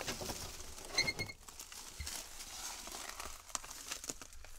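Small knocks, clicks and rustling from handling the open door of an old 1983 Chevy K10 pickup and leaning into its cab, with a short high squeak of three quick pulses about a second in.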